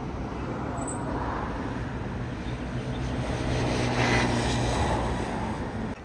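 Steady road-vehicle rumble, engine and tyre noise, swelling slightly about four seconds in.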